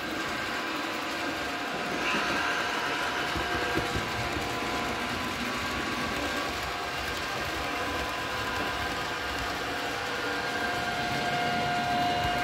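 Model trains running on the layout's track: a steady rolling rumble of wheels on rails with a motor whine, a little louder near the end as a passenger train passes close by.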